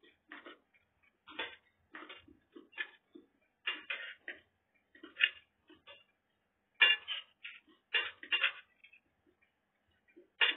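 Metal spoon and fork clinking and scraping against a ceramic plate of rice in irregular short clicks. The loudest come about seven and eight and a half seconds in.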